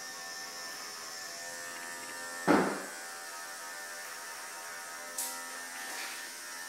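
Steady electric motor buzz with a stack of even tones, like a small grooming clipper or trimmer running. A single loud thump about two and a half seconds in, and two lighter knocks later.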